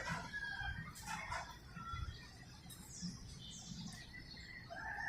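A rooster calls a few short times, then starts a long crow near the end, while small birds chirp with quick high falling notes.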